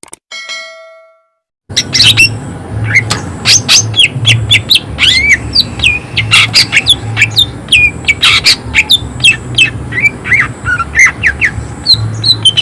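A cucak ijo (green leafbird) singing loudly and without pause in an excited flow of rapid whistles, quick up-and-down slurs and harsh, sharp shot-like notes. A brief ringing tone fades out just before the song begins, about two seconds in.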